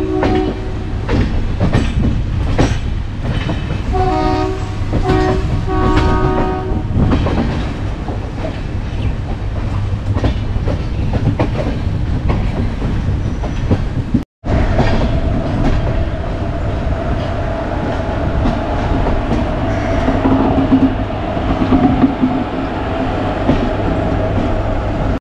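Moving passenger train, its wheels clattering over rail joints and points. A locomotive air horn sounds briefly at the start and again in three short blasts about four to six seconds in. The sound cuts out for a moment about halfway through.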